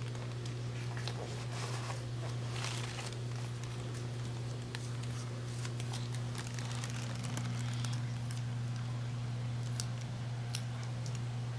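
A steady low hum, with faint rustling and small clicks of sticker backing paper being handled.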